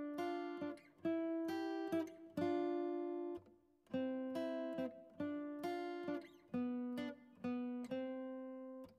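Background music: an acoustic guitar picking a slow melody, one note after another, each note fading out.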